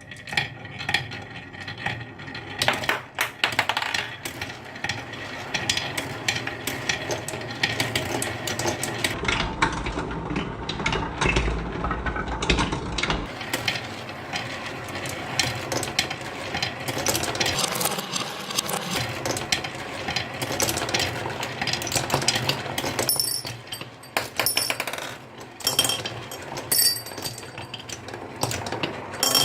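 Many marbles rolling and clacking down a wooden marble run track, a dense, constant rattle of small hard clicks and knocks that thins out a little late on.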